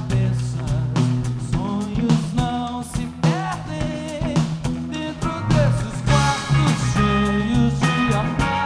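Live rock band playing: a man singing over electric guitar and a drum kit, with steady drum hits throughout.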